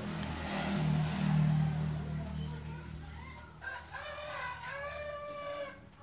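A rooster crows once in the second half, a pitched call of about two seconds that rises and then holds. Under the first half there is a low steady engine hum, loudest a second or two in.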